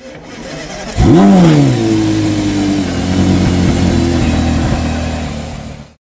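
A car engine fires up about a second in with a sharp rev that drops straight back, then settles into a steady idle that fades out near the end.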